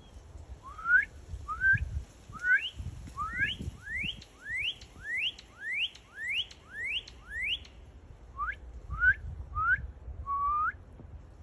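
Northern cardinal singing: a run of about eleven clear, rising whistled notes, a little under two a second, then after a short pause four more rising notes, the last one lower and drawn out.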